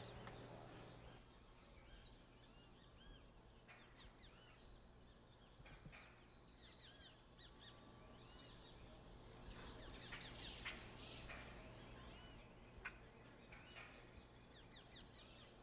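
Faint outdoor ambience of many small birds chirping and calling in short, rising-and-falling notes over a steady high insect drone, busiest in the middle, with a single light click near the end.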